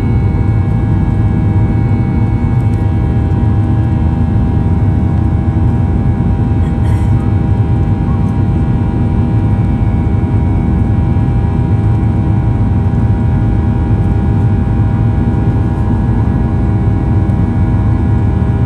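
Inside the cabin of a Boeing 737-800 climbing out after takeoff: its CFM56-7B turbofans at climb thrust make a steady, loud low rumble overlaid with several steady whining tones.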